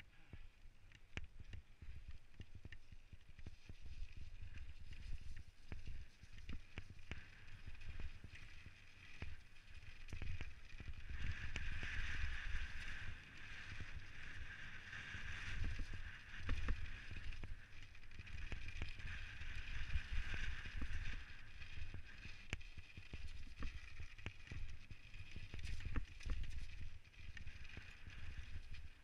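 Specialized Stumpjumper mountain bike descending a gravel trail at speed: tyres rolling over loose gravel, constant clicks and knocks as the bike rattles over bumps, and low wind rumble on the camera microphone. A higher whir from the tyres and drivetrain swells through the middle and eases again near the end.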